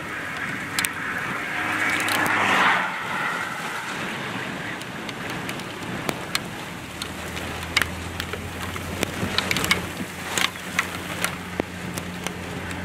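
Gusty storm wind buffeting an open car window, swelling about two seconds in, with scattered raindrops ticking on the car. A low steady engine hum comes in about halfway.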